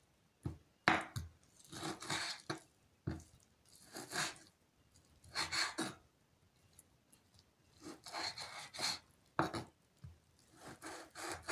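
Knife sawing through meat on a wooden cutting board, in repeated rasping strokes one to two seconds apart.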